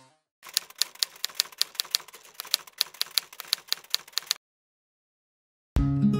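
Typewriter keystroke sound effect: a quick, uneven run of sharp clicks, about five a second, that stops about four seconds in. After a moment of silence, music with guitar starts near the end.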